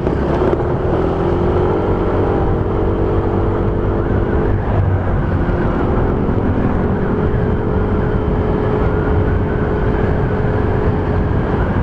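Motorcycle riding at speed, heard from a lavalier mic inside a helmet with the visor open: steady wind rush and road rumble, with the engine's steady hum underneath.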